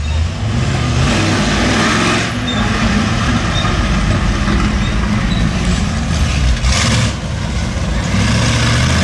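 Monster truck's big engine running loud and revving as the truck drives over a row of cars and down onto the grass, with two short surges of louder noise about two seconds in and about seven seconds in.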